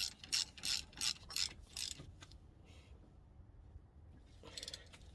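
A hand ratchet clicking through about seven quick strokes, then a shorter run of strokes near the end, as fasteners are done up at the end of the front brake job.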